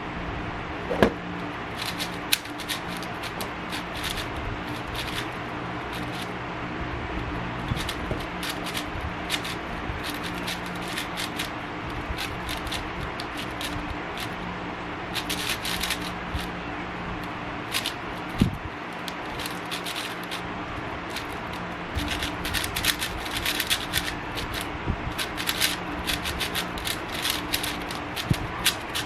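Plastic speedcube being turned by hand: quick runs of clicking and rattling layer turns, busier near the end.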